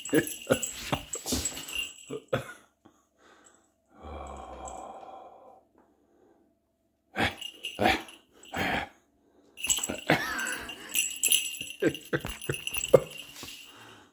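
A cat scrambling and pouncing on a vinyl floor: spells of rapid claw clicks, taps and skitters with a light jingling, broken by pauses. About four seconds in, a low rumbling noise lasts a second or so.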